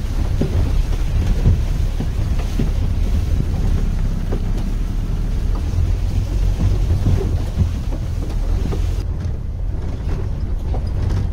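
Vehicle driving along a rutted dirt track: a steady low engine and road rumble with scattered knocks as it jolts over the ruts, and wind buffeting the microphone. The wind hiss eases about nine seconds in.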